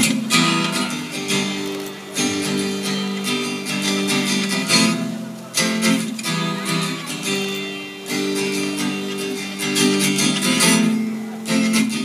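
Acoustic guitar strummed in a steady rhythm, its chords ringing between strokes: the instrumental intro of a song.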